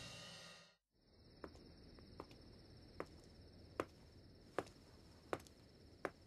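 Slow footsteps on a hard floor, one step about every three-quarters of a second, over a steady faint chirring of crickets. A rock guitar track fades out in the first second.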